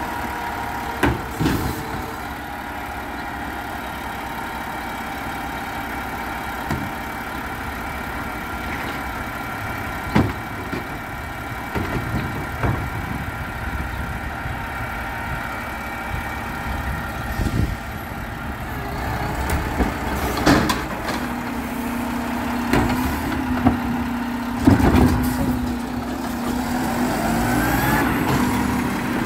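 Garbage truck engine running steadily, with occasional sharp clanks and knocks. About two-thirds of the way in, a steady low hum joins and holds.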